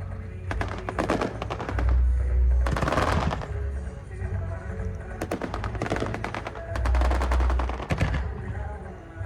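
Fireworks going off in rapid succession: fast strings of sharp crackling reports, with deep booms about two seconds in and again around seven seconds.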